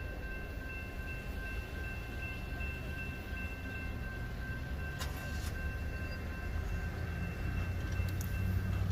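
Railroad grade-crossing warning bell ringing steadily while the crossing gates rise, then falling silent near the end. A low rumble runs underneath and grows slightly louder toward the end, with a couple of faint clicks about five seconds in.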